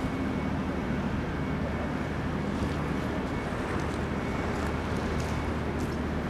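Steady low rumble of engine traffic with a faint hum, and faint crunching footsteps on pebbles and brick rubble coming and going over it.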